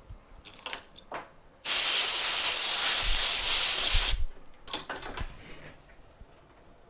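An aerosol can spraying in one steady hiss for about two and a half seconds, used to clean a BGA reballing stencil. Small handling clicks and rustles come just before and after the spray.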